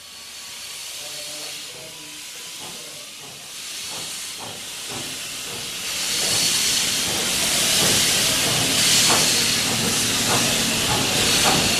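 Steam locomotive 3016 pulling away from the platform: steady hiss of escaping steam with exhaust chuffs, growing louder from about four seconds in.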